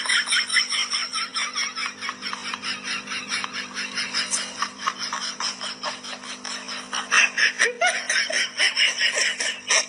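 Laughter: a long run of quick, repeated bursts of laughing that pick up again near the end.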